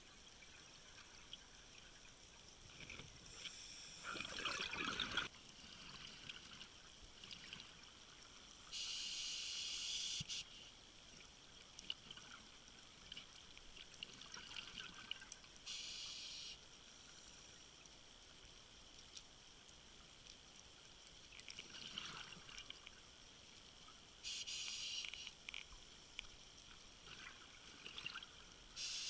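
Water hissing and trickling, with several sudden one-second bursts of louder high-pitched rushing, over a low steady hiss.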